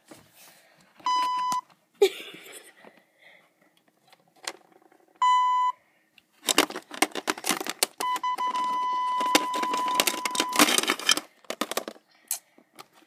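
Three steady, flat electronic censor bleeps, two short ones and then a longer one about eight seconds in, dubbed over words said to the mother. A rapid clatter of clicks and knocks runs alongside the last bleep.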